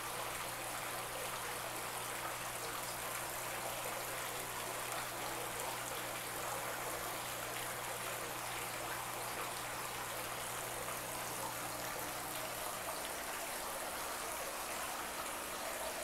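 Water trickling steadily into a tarp-lined fish pond, with a low hum underneath that stops about thirteen seconds in.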